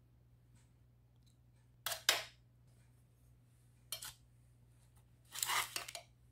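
Metal spoon scraping and scooping pan juices across baking paper in a roasting tray: three short scrapes, about two seconds in, about four seconds in, and a longer one near the end.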